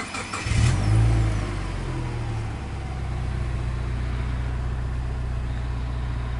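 Subaru Legacy B4's turbocharged EJ20 flat-four finishing its crank and catching about half a second in. The revs flare briefly and then settle to a steady idle.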